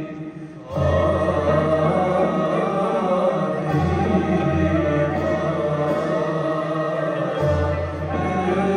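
Mevlevi sema ceremonial music: voices chanting together over a steady low drone. After a brief drop at the start, it comes back in at full strength within a second.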